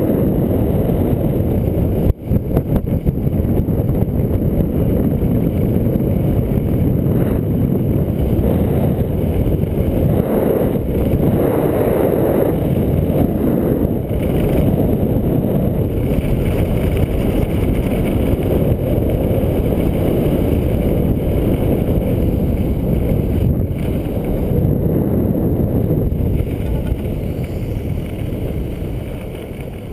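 Wind rushing over the microphone of a camera worn by a skier descending fast, mixed with skis sliding over groomed snow. A few sharp knocks about two seconds in, and the rush eases near the end as the pace slows.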